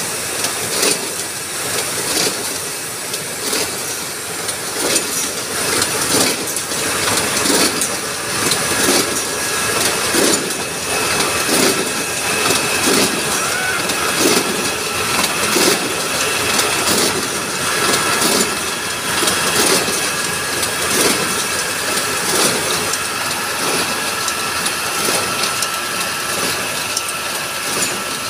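Cement-sack making machine running, its rollers and feed mechanism knocking in a regular, even clatter as printed sacks pass through, over a steady high hum.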